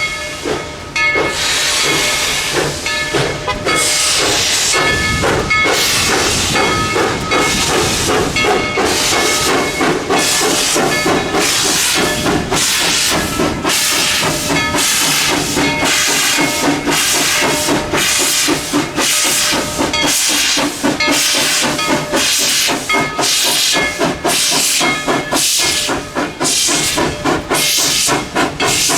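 Steam locomotive running in reverse, its exhaust chuffing in a regular rhythm of hissing beats, about one to two a second, over a steady hiss of steam.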